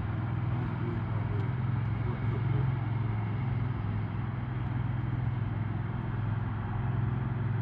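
An engine running steadily, a constant low drone with no change in pitch.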